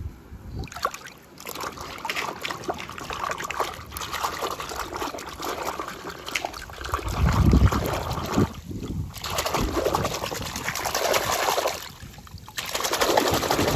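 A hand sloshing and rummaging through foamy water in a plastic tub, the water splashing and trickling unevenly, with a heavier surge about halfway through and a short lull shortly before the end.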